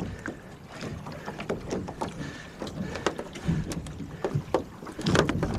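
Water sloshing and splashing around a small sailboat's hull, with irregular knocks and splashes as someone wades alongside in the shallows, a bit louder near the end.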